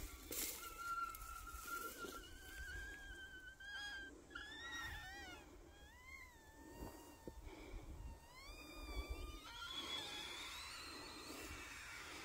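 Air squealing out of a punctured plastic toy ball as it deflates: a wavering whistle that drifts in pitch, breaking into quick warbles about four to five seconds in.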